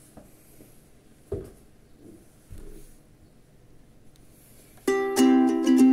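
Quiet room sound with a couple of brief soft knocks, then, about five seconds in, background music of a plucked string instrument, ukulele-like, starts abruptly and plays on with repeated chords.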